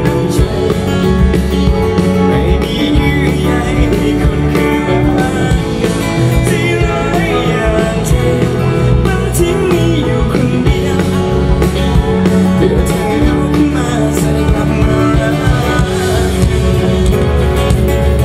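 Live rock band playing: a singer's voice over acoustic and electric guitars, bass and drums, amplified through the stage PA.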